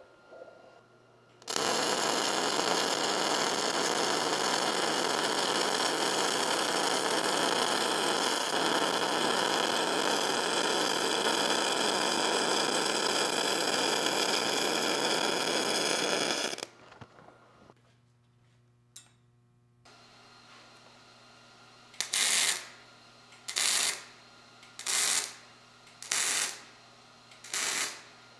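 MIG welder running a continuous weld for about fifteen seconds, a steady even noise that stops abruptly. Near the end come five short bursts about a second and a half apart.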